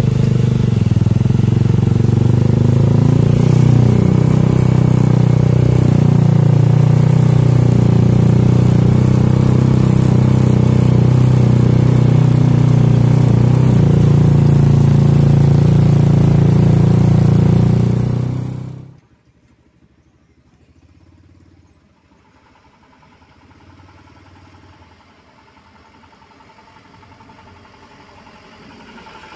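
Loud, steady vehicle engine drone with a strong low hum, heard while driving behind a dump truck. It cuts off suddenly about two-thirds of the way through, leaving a faint dump-truck engine that slowly grows louder as the truck approaches.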